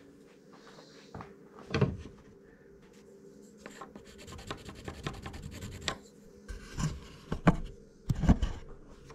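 Wooden door planks being worked by hand: rubbing and scraping with a handful of knocks, and a quicker run of small ticks in the middle.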